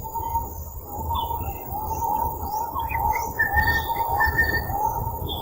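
Birds chirping and calling, many short notes repeated over and over, with higher calls mixed in, over a low rumble.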